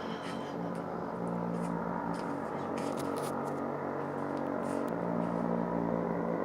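A steady low droning hum made of several held tones, with faint scattered clicks above it.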